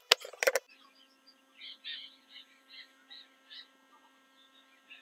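Several quick strokes of a kitchen knife slitting green chillies against a wooden chopping board in the first half-second. After that only a faint steady hum with a few soft high chirps.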